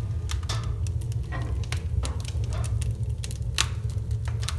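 Wood fire crackling in the firebox of a homemade wood stove: sharp, irregular pops over a steady low rumble.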